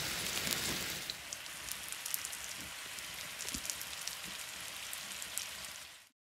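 Peach wedges sizzling and bubbling in a buttery brown-sugar caramel in a roasting tin while the flambéed mezcal burns off. A denser, louder hiss for about the first second, then a quieter sizzle with small crackles and pops, cutting off suddenly near the end.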